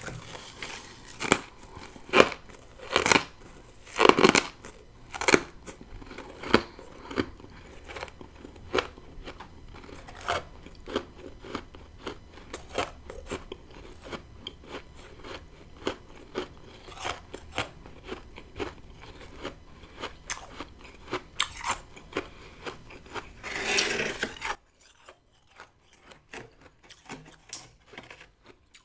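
Close-up biting and chewing of deep-freezer frost, with repeated crisp crunches. About three-quarters of the way through comes a longer crunching rush, then the chewing turns quiet and sparse.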